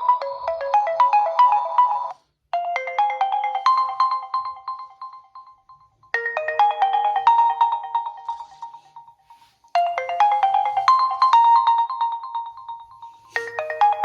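Realme C11 2021 phone ringtone playing: a bright, plucked-sounding melody of quick notes. One tune stops abruptly about two seconds in, and after a short gap a new phrase starts, repeating about every three and a half seconds.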